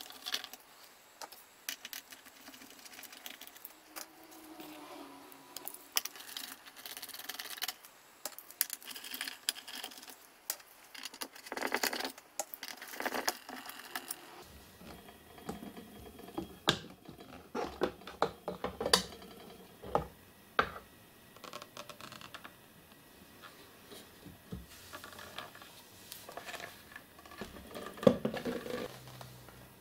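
Small screws being undone from the metal top panel of a Radiac Survey Meter No 2 with a screwdriver: scattered clicks, scrapes and light metallic clinks from the driver and the metal parts being handled. A louder knock near the end as the panel and case are moved.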